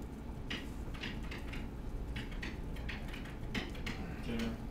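Stylus pen tapping and scratching on a digital writing surface as words are handwritten: a string of short, irregular clicks and scrapes over a steady low hum.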